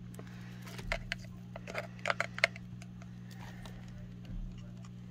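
Painting supplies being handled at the table: a run of small clicks and taps, the sharpest about two and a half seconds in, as the paintbrush and paint things are put down and picked up. A steady low hum runs underneath.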